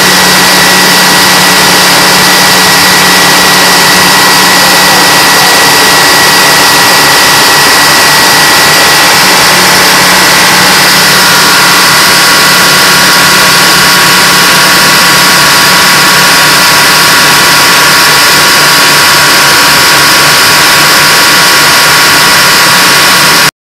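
Twin Detroit Diesel 6-71 two-stroke inline-six diesel engines, coupled through a common gearbox, running steadily to drive a 480-volt generator. The engine noise is loud, with a high whine that shifts in pitch about halfway through.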